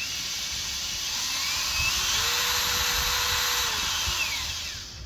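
Metabo HPT DV18DC 18 V cordless hammer drill running under trigger control. Its motor whine climbs in pitch, holds for about a second and a half, then winds back down and stops near the end.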